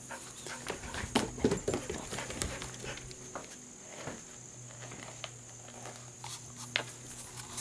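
A border collie's paws and claws clattering on wooden deck boards as it runs up onto the deck, a quick burst of footfalls about a second in, then a few scattered clicks as it moves about.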